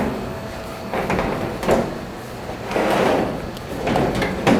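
Dryer drum being shifted and worked out of the cabinet: several scrapes and bumps of sheet metal against the housing, a second or so apart.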